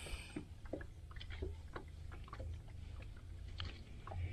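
Water lapping against a small fiberglass fishing boat's hull, with scattered light taps and clicks over a low steady rumble.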